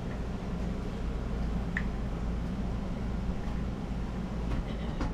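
Steady low mechanical hum, with a few faint clicks of small parts being handled.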